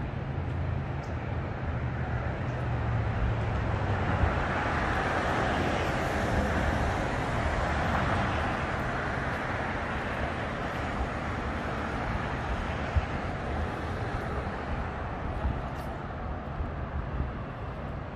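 City street traffic: a low engine hum gives way about four seconds in to a passing vehicle whose rushing noise swells for several seconds and then slowly fades.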